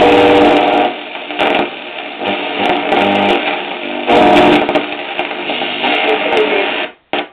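Vega 300 Stereo radio-gramophone's receiver playing music from an AM broadcast, with the narrow, muffled sound of medium-wave reception. As the dial is turned the signal comes and goes in surges, and it cuts out briefly near the end.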